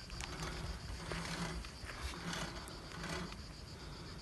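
Insects chirring in a steady high-pitched drone, with soft rustles about once a second.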